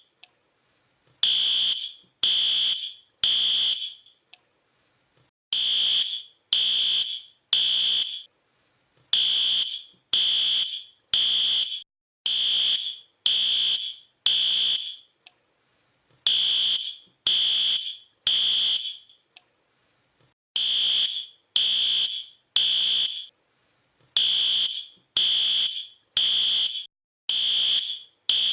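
Fire alarm sounding its evacuation pattern: loud, high-pitched beeps of about half a second each, mostly in groups of three with a short pause between groups.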